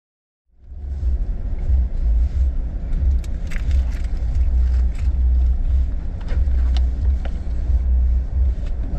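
Steady low rumble inside an SUV's cabin, the vehicle's road and engine noise, starting about half a second in, with a few faint clicks and rustles from the occupants.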